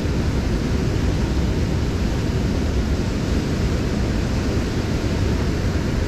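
Water rushing steadily out of a dam spillway: a constant, even noise, heaviest in the low end.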